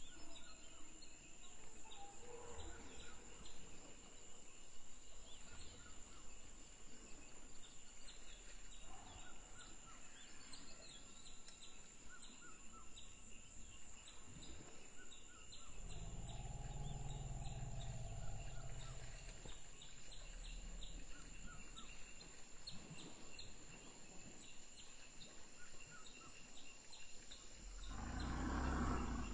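Tropical forest ambience: insects ticking and chirring steadily, with occasional bird calls. A low, drawn-out sound of about three seconds sits in the middle, and a louder rushing noise comes near the end.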